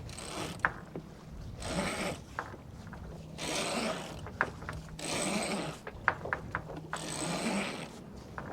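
Sailboat's jib sheet winch being cranked in: a grinding whirr about every second and a half to two seconds, with sharp ratchet clicks between the strokes as the sheet is trimmed.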